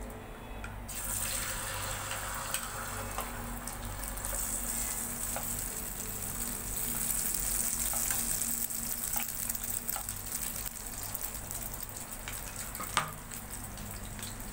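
Beaten egg frying in hot oil in a pan: a sizzle that starts about a second in as the egg is poured and runs on steadily, with one sharp click near the end.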